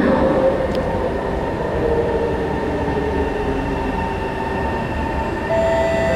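SMRT C151 electric metro train running into the station platform, a steady rumble with several whining tones. About five and a half seconds in, a set of higher-pitched tones joins in.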